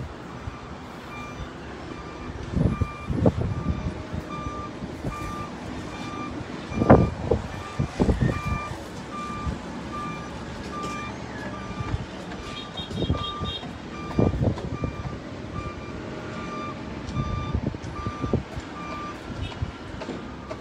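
A vehicle's reversing alarm beeping steadily, one even tone at regular intervals, stopping near the end. Irregular low rumbles and thumps run underneath, the loudest about seven seconds in.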